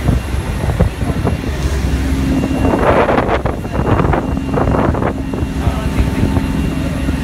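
Harbour ferry boat under way: its engine drones steadily under a low rumble of wind and water noise on the open deck, with a louder rush of noise about three seconds in.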